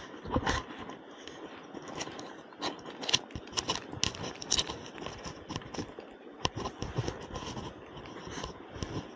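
Footsteps and handling noise on a sandy riverbank: irregular soft scrapes and crackles, a little louder around three seconds in and again near six and a half seconds, over a faint steady rush of river current.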